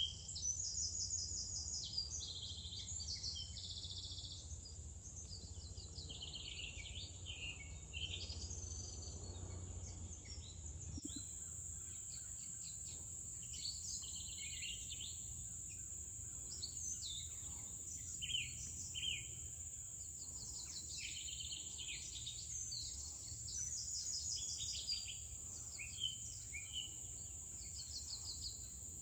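Birds chirping and trilling in short repeated phrases over a steady high-pitched insect drone, with a low rumble underneath.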